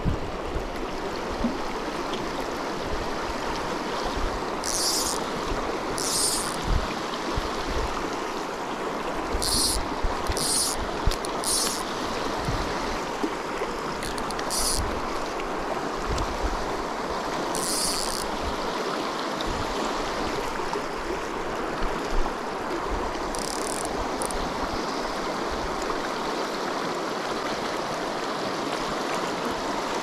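River water rushing steadily over small rapids, with several short, high hisses scattered through it.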